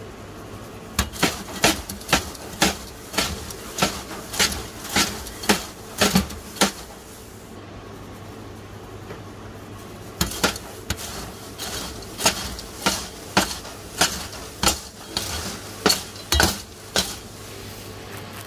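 A metal scoop knocked again and again against the popcorn bin, about two sharp clanks a second, shaking cheese powder off onto the popcorn. The clanks come in two runs with a pause of a few seconds between them, over a steady low hum.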